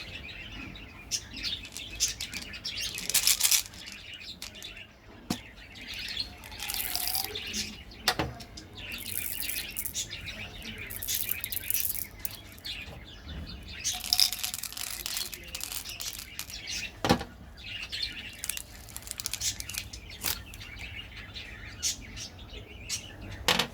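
Close-miked eating sounds: bites and wet chewing of candy and jelly in short, irregular bursts, with a few sharp clicks between them.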